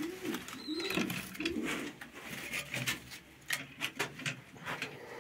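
Domestic pigeons cooing: a few low, rising-and-falling coos in the first two seconds, followed by scattered light clicks and taps.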